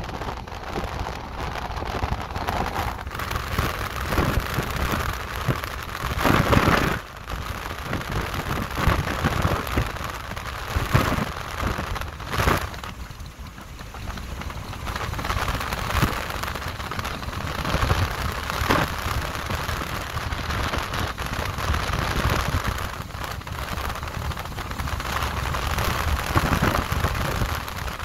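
Wind and road noise of a moving vehicle rushing over the microphone: a rough, uneven rushing with deep rumble, swelling in a louder gust about six seconds in.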